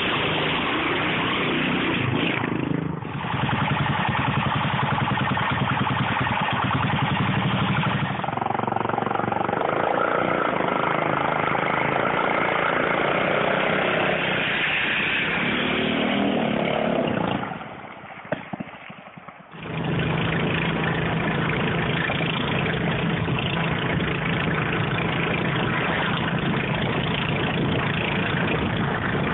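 Small motorbike engines running in a string of short clips, starting with a minibike's engine. From about twenty seconds in there is a steady engine and road drone from a moving car.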